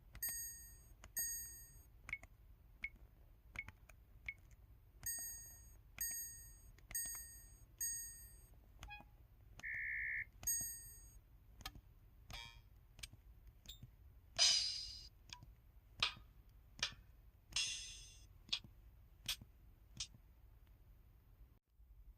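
A KTF-TR2000 mobile phone playing its 'Drum Set 2' keypad tones, one short electronic drum sound for each button press, about twenty in a row. Some hits are short pitched ticks, a single held beep comes about ten seconds in, and two longer hissing hits fall past the middle.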